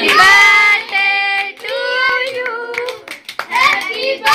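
Children and a woman singing a birthday song together, with some hand clapping.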